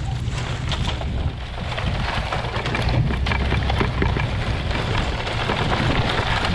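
A chain-link fence drag weighted with wooden pallets scraping and rattling over dry pasture ground, breaking up dried manure piles, with a steady low rumble underneath from the towing.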